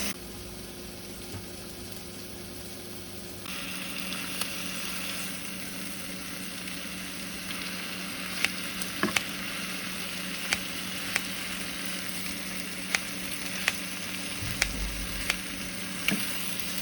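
Food sizzling in a frying pan, the sizzle growing louder about three and a half seconds in; from about eight seconds on, a utensil stirring the food clicks sharply against the pan again and again.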